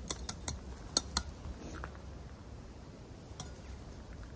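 Small gravel stones clicking and knocking together as weeds are pulled by hand out of a gravel bed: a few light clicks, most in the first second, one more near the end, over faint low outdoor rumble.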